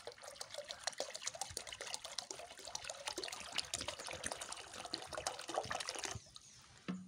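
Water poured from a plastic bottle into a small plastic pot already partly full, splashing and trickling onto the water's surface; the pour stops about six seconds in.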